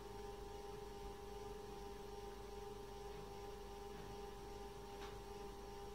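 Faint, steady electrical hum with a couple of constant tones, and a faint click about five seconds in.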